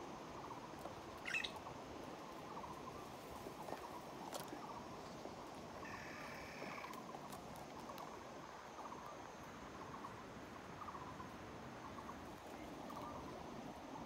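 Birds and squirrels calling in the trees: a steady run of small repeated chirps, with a sharper rising call about a second in and another call around the middle.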